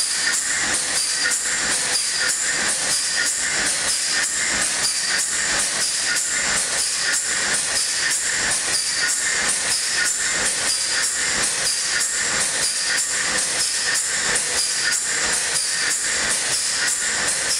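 Large TDA gas engine running at a compressor station: a loud, steady machinery noise with a rhythmic metallic clatter that repeats evenly. The engine's tail guide casting is working back and forth on its greased bedplate.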